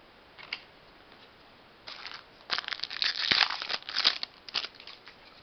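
A Topps Opening Day baseball card pack being torn open, its wrapper crinkling and crackling in a run of rustles that starts about two seconds in and is loudest around the middle.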